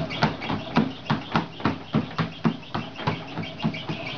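A small child's feet patting quickly on a moving treadmill belt, about five steps a second, over the steady hum of the treadmill running.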